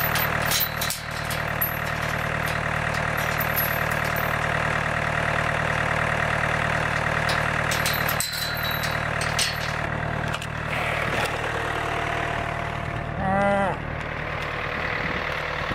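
John Deere 4600 compact tractor's diesel engine idling steadily, with a chain rattling and clinking against a steel pipe gate early on and again midway. A cow moos once, loudly, near the end.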